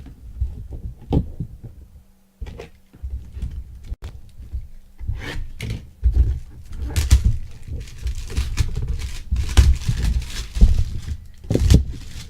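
A box of Funko Pop figures being torn open by hand: packaging ripping and crinkling, with irregular knocks and thumps from handling. The ripping is thickest in the middle of the stretch.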